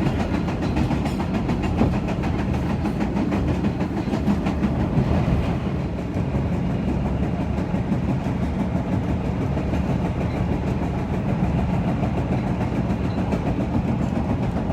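Chicago CTA rapid-transit train running along the track: a steady, even noise of wheels on rail and motors, heaviest in the low range. It is a little brighter for the first five seconds or so.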